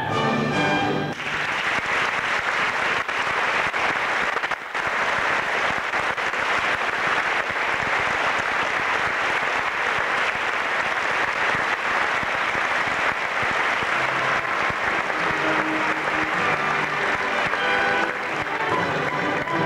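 A theatre audience applauding steadily after the orchestra's closing chord breaks off about a second in; near the end the orchestra starts playing again under the applause.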